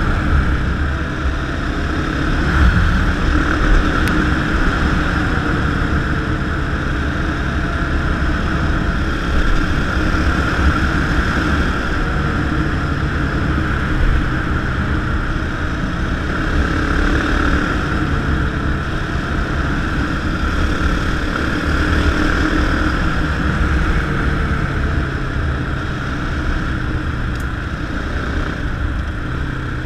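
Motorcycle engine running steadily at cruising speed, mixed with wind rush over the microphone. The engine pitch drifts only slightly.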